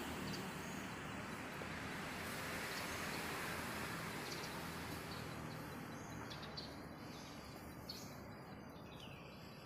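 Outdoor background: a steady hiss that slowly fades, with a few short, high bird chirps scattered through it.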